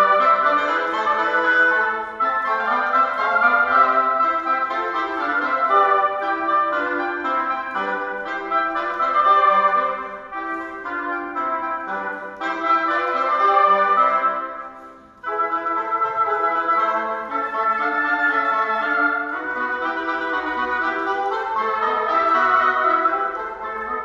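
Two oboes and an English horn playing together in three interwoven parts, with a short break about fifteen seconds in before they go on.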